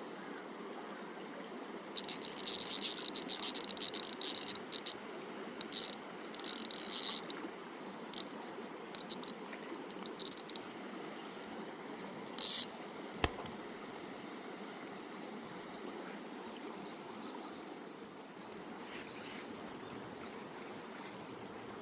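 Steady rush of a mountain stream, broken in the first half by several short bursts of a small spinning reel being cranked, its gears whirring and ticking, and a single sharp click near the middle.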